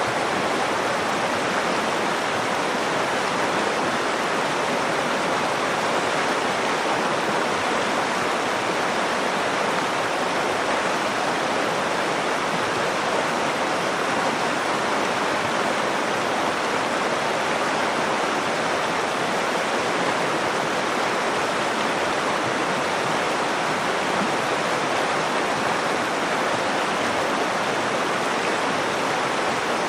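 Water of the upper Nakdong River flowing, a steady, even rush of running water that does not change.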